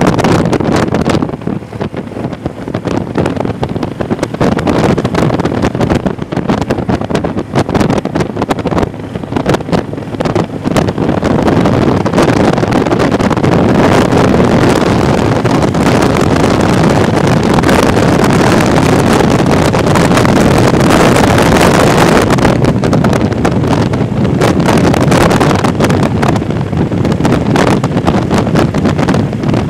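Wind rushing over the microphone of a moving motorcycle, with the motorcycle's engine running underneath. The rush grows louder about a third of the way in and eases again about two-thirds through.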